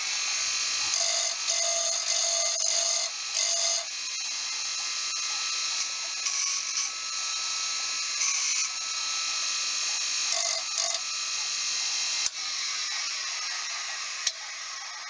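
Restored Hunter bench grinder running with a steady whine, with a metal tool pressed against the grinding wheel in several short bursts of grinding. After a click about twelve seconds in, the grinder winds down near the end.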